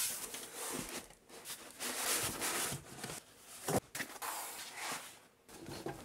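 Cardboard shipping box being opened and packaging rustling in irregular bursts as a PC case in a cloth bag is lifted out, with a sharp knock about four seconds in.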